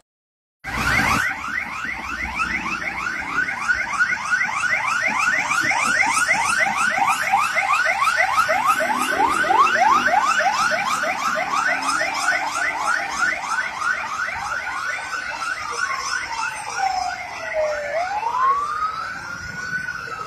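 Police vehicle's electronic siren on a fast yelp, about four rising sweeps a second. Near the end it changes to a slow wail that falls and rises again.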